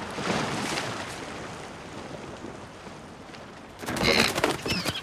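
Ocean surf washing around a rock. About four seconds in comes a sudden scuffle, then a few short high calls from an injured seagull.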